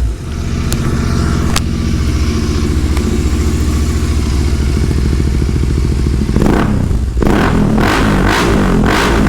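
Royal Enfield Continental GT 650's parallel-twin engine idling through an aftermarket Red Rooster Stellar exhaust, with two sharp ticks in the first two seconds. About six seconds in it is revved, then revved again several times.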